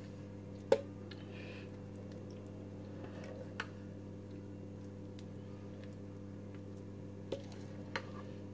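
A few short clicks of a metal spoon against a metal saucepan and a glass baking dish as thick béchamel is scraped and poured out, over a steady low hum.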